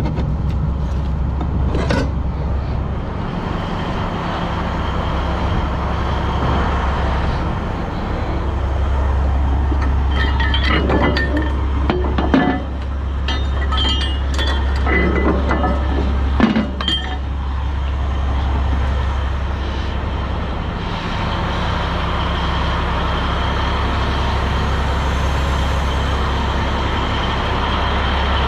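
Peterbilt 362 cabover's diesel engine idling steadily. About ten seconds in, several seconds of metal clinking and clanking from chain and steel tow hooks being handled.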